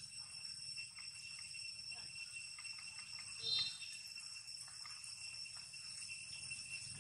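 Steady high-pitched chorus of forest insects, several even tones held without a break, with one brief chirp about halfway through.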